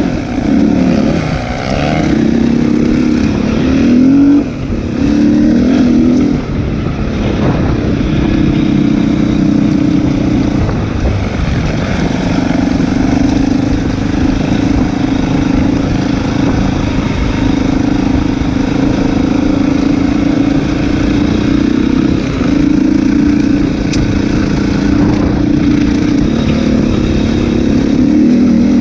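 Enduro dirt bike engine running under load, its revs rising and falling several times in the first few seconds, then holding steadier.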